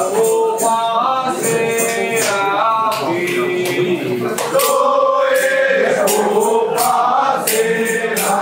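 A group of men singing a Romanian carol together in long held notes, over a steady beat of percussive strikes.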